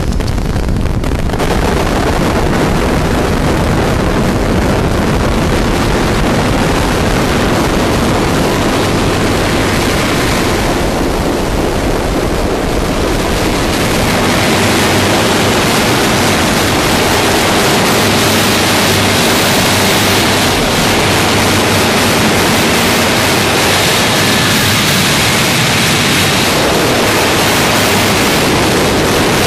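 Harsh noise music: a loud, unbroken wall of dense static hiss and rumble covering every pitch. About halfway through it turns brighter and a little louder, with less deep rumble.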